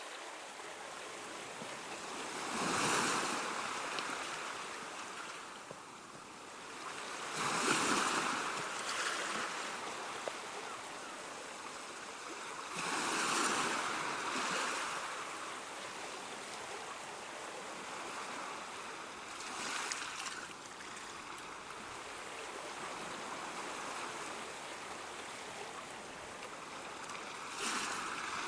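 Ocean surf: waves break five times, about every five to six seconds. Each one swells and falls away over a steady wash of water.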